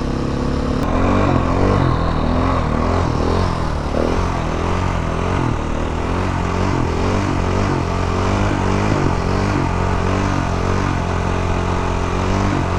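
Motorcycle engine running under throttle during a wheelie, its revs rising and falling again and again as the rider balances the bike on the rear wheel with the foot brake.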